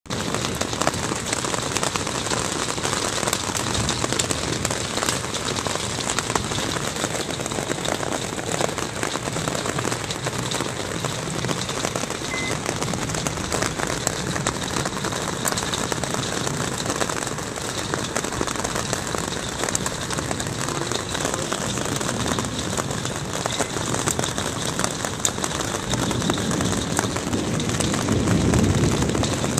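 Hail drumming on a camper's roof and walls: a dense, steady clatter of many small impacts from hailstones the uploader calls golf ball sized. A low rumble swells near the end.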